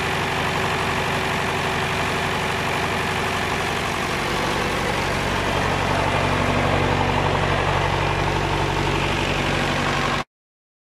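David Brown 1490 tractor's four-cylinder diesel engine running steadily at idle, slightly louder in the second half, then cutting off abruptly near the end.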